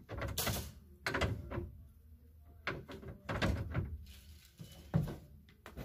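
Irregular knocks and clatter as things are handled and set on a store's high wall shelf, about seven in all, the sharpest about five seconds in.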